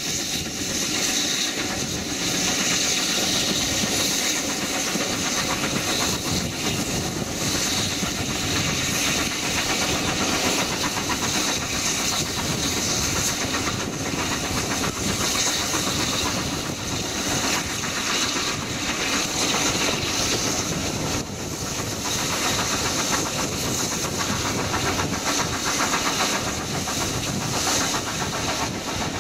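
Steam train hauled by the GWR Manor-class 4-6-0 locomotive Norton Manor, heard from an open carriage window: the locomotive working under steam with hissing exhaust, mixed with the steady rumble of the carriages on the rails and rushing air.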